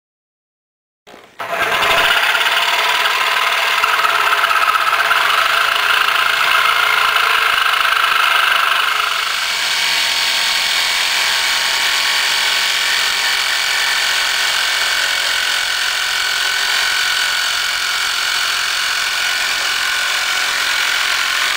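Jigsaw starting about a second in and cutting through a wooden board, motor and reciprocating blade running steadily under load. About nine seconds in the tone shifts and the level drops slightly.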